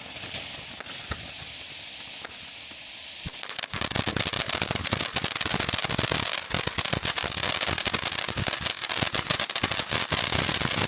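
Consumer fireworks going off: a hiss with scattered pops, then about four seconds in a sudden, dense run of rapid cracks and bangs that keeps going, loud enough to 'bust your eardrums'.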